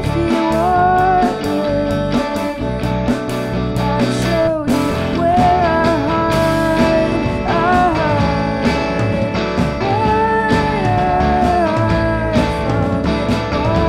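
Indie rock band playing live: a woman singing lead over a hollow-body electric guitar, electric bass and a Tama drum kit, with steady cymbal strokes.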